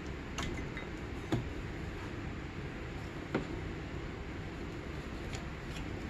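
Light metallic clicks and taps as a snowmobile piston's wrist pin is pushed through the piston onto the connecting rod, two sharper knocks about 1.3 s and 3.4 s in, over a steady low hum.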